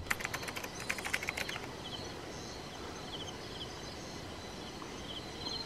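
Faint rural evening ambience: a low steady hiss with a run of light clicks in the first second and a half, then short, high chirps repeating from about two seconds in.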